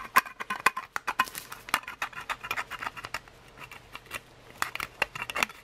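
P-38 can opener cutting around the rim of an old C-ration tin can in short levering strokes, a rapid, irregular string of sharp metallic clicks and scrapes.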